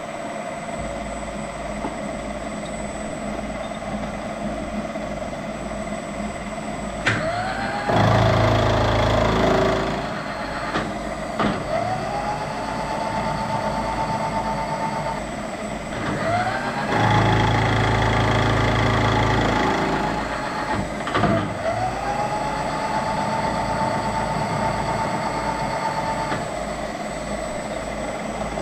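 Machine tool running with a steady motor hum. Several times its motor whine rises in pitch and levels off, and twice there is a louder stretch of a few seconds, typical of a cutting pass while machining aluminum.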